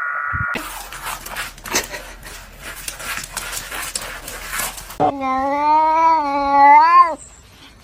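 A cat giving one long, drawn-out meow of about two seconds, its pitch wavering slightly, after a few seconds of rustling and handling noise.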